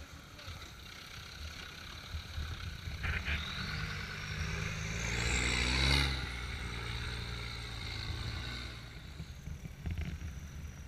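Land Rover Defender 110's engine pulling it slowly up a dirt track, growing louder as it passes close by about six seconds in, its note sliding down as it moves away, then fading. A few sharp clicks about three seconds in.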